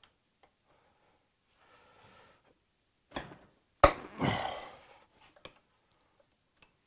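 Sparse clicks and knocks of hand tools and small metal parts being handled at a motorcycle engine's crankcase. The loudest is a sharp knock about four seconds in, followed by a short rustling noise.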